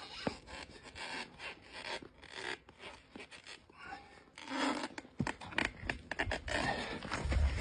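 Steel crowbar prying a motorcycle tyre's bead over the wheel rim: rubber scraping and rubbing against the rim, with scattered short knocks of the bar.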